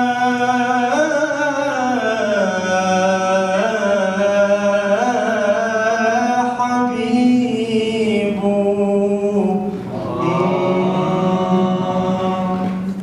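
A man singing an unaccompanied Iraqi mawwal, drawing out long, ornamented held notes with slow pitch bends. There is a brief pause for breath about ten seconds in before another long note.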